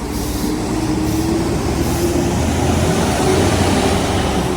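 Intercity bus pulling away: deep engine rumble with a thin whine that rises slowly in pitch as it gathers speed.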